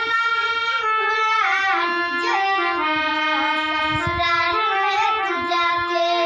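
Harmonium playing steady held chords while a young girl sings a Bhojpuri jhareliya folk song over it, her voice gliding and wavering around the held notes.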